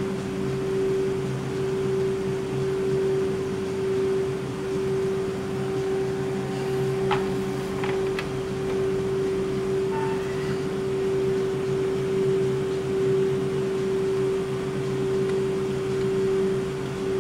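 BKN-S82 soft-serve ice cream machine, with twin compressors and beater motors, running with a steady hum and one constant tone while it dispenses continuously. A few faint clicks come about seven to eight seconds in.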